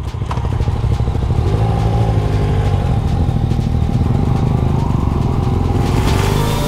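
Yamaha MT-09's inline three-cylinder engine pulling away and running at low, steady revs as the motorcycle rides off, its pitch climbing a little near the end.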